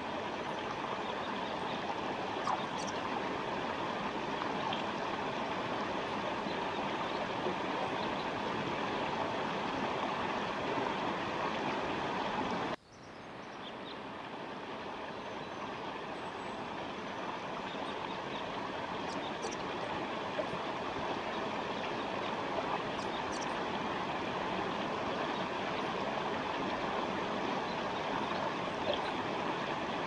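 Forest stream flowing steadily, a continuous rush of water, with a few faint, brief high bird chirps. A little under halfway through, the sound cuts out abruptly and fades back in over a couple of seconds.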